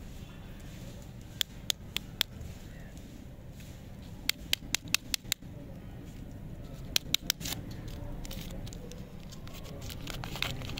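Plastic lollipop wrapper crinkling as it is handled and peeled open: three clusters of sharp crackles, then a softer rustle near the end.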